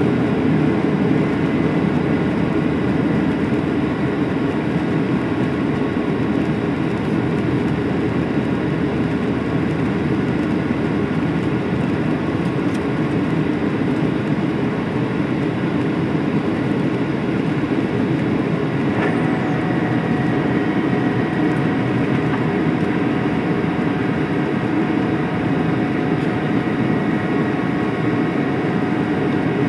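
Steady cabin noise of a Boeing 737-800 climbing after takeoff, heard from inside the cabin: the CFM56-7B engines' drone and rushing airflow, with faint steady whining tones. About two-thirds of the way through there is a faint click, and a new steady tone joins in.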